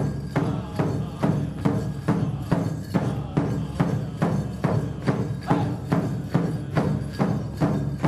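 Powwow big drum struck in a steady, even beat, about two and a half strokes a second, with the drum group singing over it.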